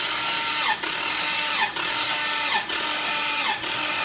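Starter motor cranking the rebuilt Bentley 6.75-litre twin-turbo V8 for a compression test, a loud steady whine that sags in pitch about once a second as the tested cylinder comes up on compression. The gauge reads about 125 to 128 psi, which is pretty good for the fresh rebuild.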